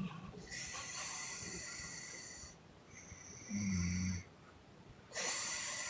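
A sleeping woman snoring loudly in a breathing cycle: a long, airy puffing exhale, then a short, low snore about three and a half seconds in, and another puffing exhale starting near the end.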